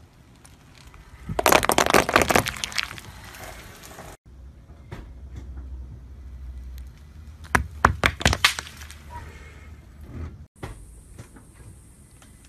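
Car tire rolling over a pile of paintballs, breaking them in a rapid burst of sharp cracks about a second and a half in. A few sharp clicks follow later.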